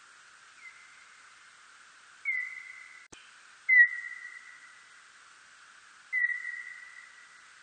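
Birdlike noctule (Nyctalus aviator) bat calls: four whistle-like tones, each opening with a quick drop in pitch, then holding one steady pitch and fading over about a second. The third call is the loudest and the first is faint.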